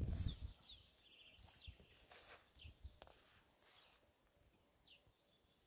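Quiet bush ambience with birds calling: short, falling chirps repeated about once a second. A low rumble fades out in the first half second, and there is a single faint click about three seconds in.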